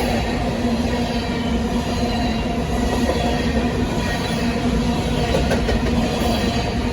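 BNSF grain train's hopper cars rolling past, a steady sound of steel wheels on rail with some clickety-clack.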